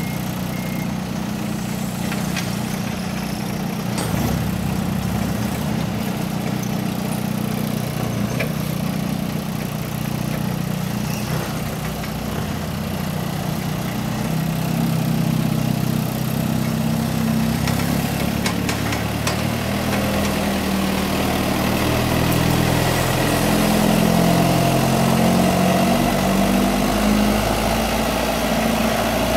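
Navigator 5500 forklift's engine running as it drives around, getting a little louder about halfway through and again toward the end. A thin, high whine joins in over the last several seconds.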